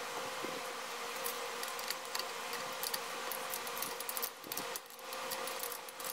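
Small, irregular metallic clicks and scrapes as a screw is handled and started by hand into the gearcase of a Johnson 15 HP outboard's lower unit.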